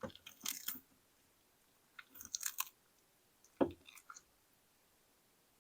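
A turtle biting into and chewing food, crisp little crunches in three short bouts, about a second and a half apart.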